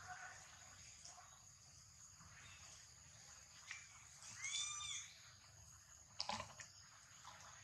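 A macaque gives one short, high, arching scream about four and a half seconds in, during a chase between monkeys. A steady high insect buzz runs underneath, and a brief sharp sound follows a little before the end.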